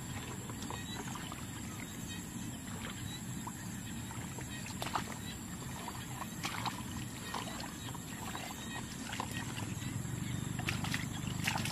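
Muddy ditch water splashing and sloshing in short, irregular splashes as hands grope through it for fish, over a steady low background noise.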